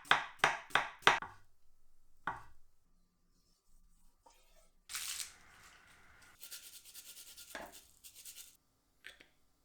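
A knife chopping on a cutting board: four quick strikes in the first second, then a single knock. After that come quieter handling sounds, a short burst of hiss about halfway through, and a rapid rasping run near the end.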